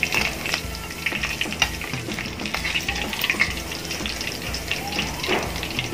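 Milkfish pieces frying in hot oil in a wok, with a steady crackling sizzle, as a metal spatula scoops the fried pieces out of the oil.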